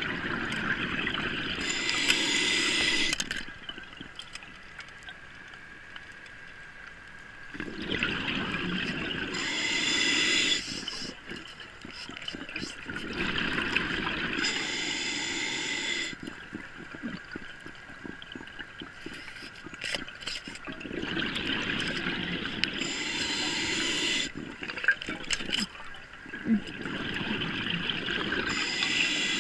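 A scuba diver breathing through a regulator underwater, about five breaths a few seconds apart, each a rush of air and bubbles, with quieter gaps between.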